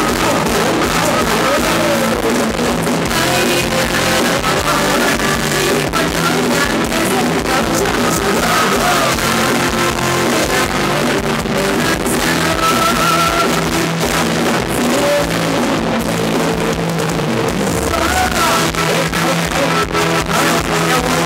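Loud live band playing Thai ramwong dance music, with a steady drum beat and singing.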